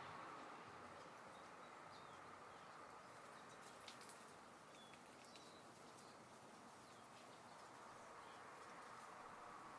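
Near silence: faint steady outdoor ambience, with a few faint bird chirps and a small tick about four seconds in.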